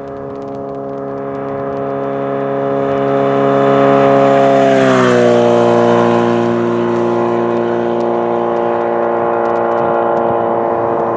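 Kawasaki Z900RS inline-four with a Holeshot 4-2-1 header and 10-inch Bad Boy comp core muffler passing at a steady cruise of about 65 mph in sixth gear, around 4000 rpm. The exhaust note grows louder as the bike approaches, drops in pitch as it goes by about five seconds in, and carries on at the lower pitch.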